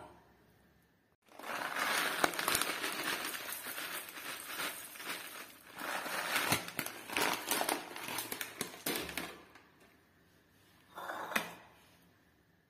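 Crinkling, crackling handling noise, like something being crumpled or rustled, starting about a second in and going on for about eight seconds, then one short burst of it near the end.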